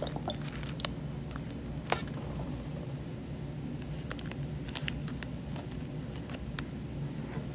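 Scattered small clicks and crinkles of paper and packaging being handled, over a steady low hum.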